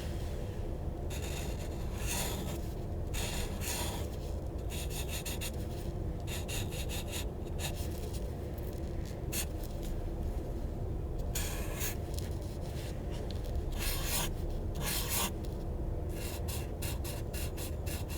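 A drawing tool scribbling on paper: irregular runs of quick scratchy strokes, with a few longer held strokes, over a steady low background hum.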